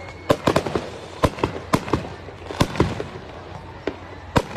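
Aerial fireworks display: shells bursting overhead in a quick, irregular run of sharp bangs and pops, about a dozen in under five seconds.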